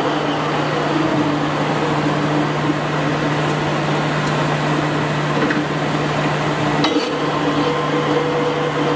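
Polamco 25" x 60" engine lathe running under power: a steady hum with a busy whir from the headstock gearing as the chuck spins. About seven seconds in, a sharp click comes as the hum briefly drops out and returns.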